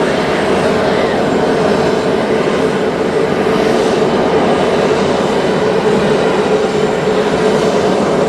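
Jet airliner engines running with a loud, steady rushing noise, even throughout.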